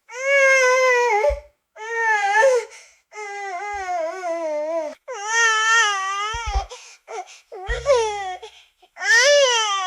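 Infant crying: about six wails in a row, each a second or two long, with short breaths between them.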